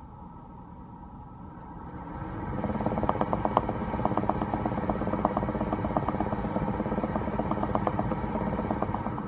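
Rapid, irregular bubbling and popping noise from a 2016 BMW X5 F15, starting about two seconds in over a steady low hum and continuing through to the end.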